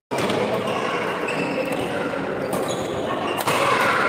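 Badminton rally in a large sports hall: a few sharp racket strikes on the shuttlecock and players' footfalls over a steady murmur of spectator chatter.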